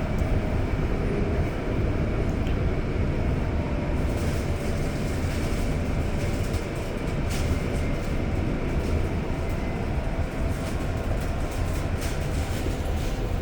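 Ride inside a moving REM light-metro car: steady rumble of the wheels and running gear, with a faint steady whine and scattered short clicks and rattles from about four seconds in.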